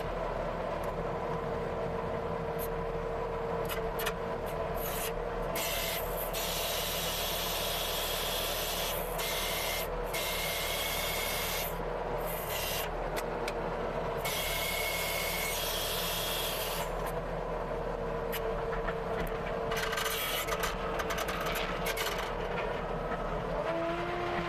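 CASE TR270B compact track loader running with its hydraulic rototiller attachment engaged, tilling garden soil: a steady engine drone under a continuous gritty scraping churn, with faint steady whining tones that come and go.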